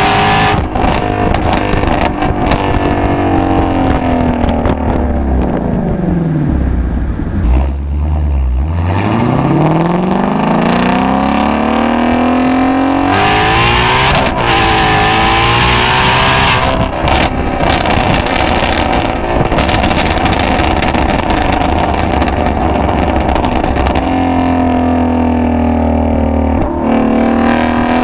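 Ford Shelby GT350's 5.2-litre flat-plane-crank V8 and exhaust, heard while driving: the revs fall steadily as the car slows, then climb again under acceleration, dip sharply at a gear change and rise once more, before settling into a steady lower drone near the end.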